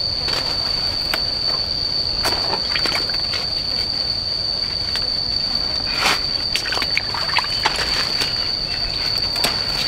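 A steady high-pitched insect drone, typical of cicadas, with scattered rustles and clicks over it, most of them around six to eight seconds in.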